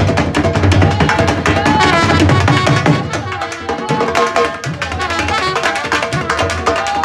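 Two dhols beaten with sticks in a fast dhamaal rhythm, with a trumpet playing a bending melody over them. The heavy bass strokes ease off about three seconds in.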